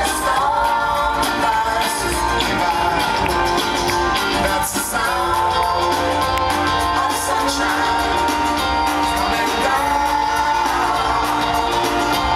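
Live band music with singing: held vocal notes over a steady bass line, played through a concert sound system.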